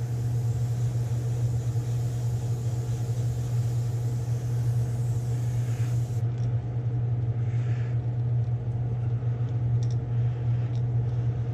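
Steady low electric motor hum from the airbrush spray booth setup, running without change, with a few faint clicks near the end.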